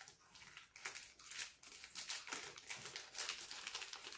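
Faint crinkling and rustling of plastic packaging, with scattered light clicks, as small camera accessories are handled and unwrapped.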